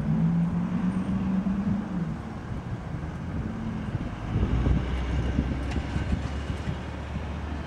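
A motor vehicle engine running with a steady low hum. A higher drone fades out after about two seconds, and a deeper rumble comes in about four seconds in.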